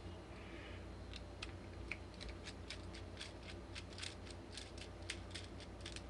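Faint, rapid light metallic clicks and taps, several a second after about a second in, from a padlock and small tools being handled.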